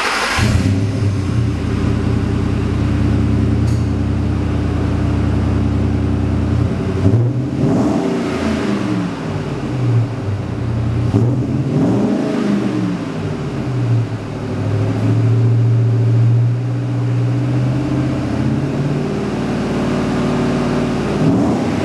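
2006 Ford F-150's 4.6L V8 running through a Magnaflow cat-back exhaust. It fires up at the start and idles, then is revved and let fall back twice, and later held briefly at a higher speed.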